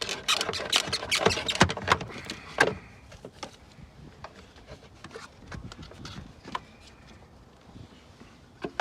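Hands working at an engine's wiring harness and connectors: a quick run of clicks, rattles and scrapes for the first three seconds, then scattered single clicks.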